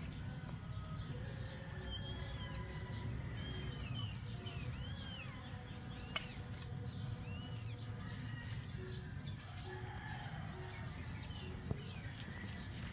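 Kittens mewing, about five short high mews that rise and fall in pitch, spread through the first eight seconds, over a steady low background hum.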